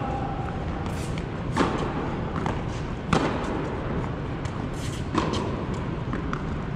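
Tennis ball being struck by rackets and bouncing on a hard court during a rally: about four sharp pops, echoing in a large indoor hall.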